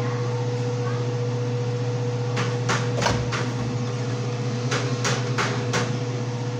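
A steady appliance hum with a held tone runs under sharp clinks and knocks of kitchenware being handled off camera. There are four in quick succession a little over two seconds in, and four more around five seconds in.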